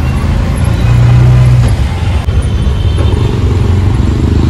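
Motor vehicle running, a steady low engine rumble with road noise, swelling briefly about a second in.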